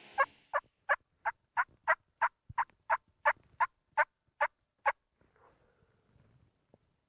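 Turkey yelping: a run of about fourteen short, evenly spaced notes, roughly three a second, that stops about five seconds in.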